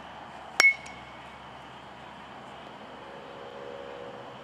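A metal youth baseball bat hitting a pitched ball once, about half a second in: a sharp ping with a short ringing tone. A faint low hum comes in past the middle.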